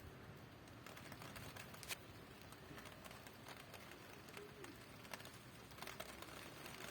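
Faint rain: a soft, even hiss with scattered drops ticking sharply on a hard surface.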